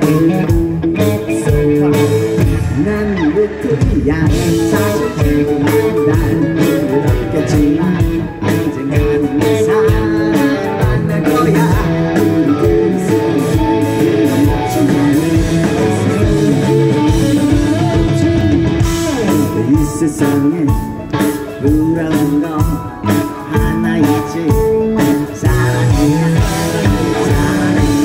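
Live rock band playing loud, with electric guitar and bass over a steady drum beat.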